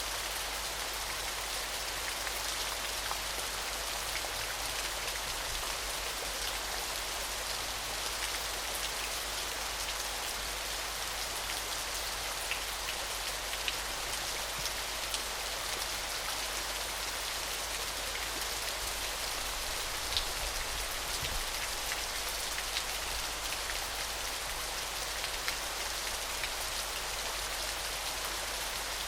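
Small, gentle waterfall: a steady hiss of splashing water with scattered little droplet ticks.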